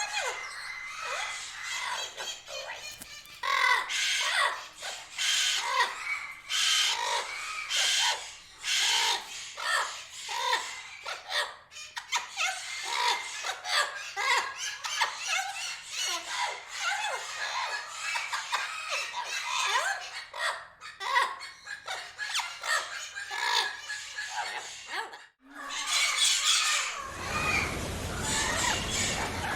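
A parrot chattering and squawking: many short, irregular calls, some squealing and some voice-like. About 25 seconds in the calls stop briefly and a harsher, noisier sound takes over.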